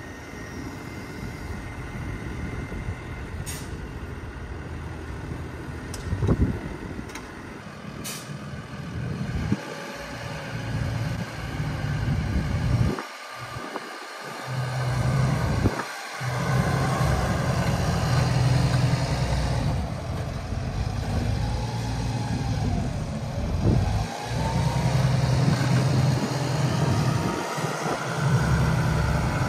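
Farm tractor engine running as it pulls a slurry tanker across the field, growing louder as it comes closer.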